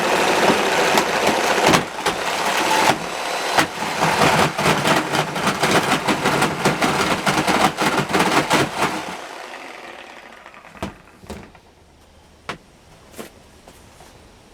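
Corded reciprocating saw with a metal-cutting blade cutting sheet metal, its blade stroking with a rapid rattling clatter. The saw stops about nine seconds in, and a few separate knocks follow.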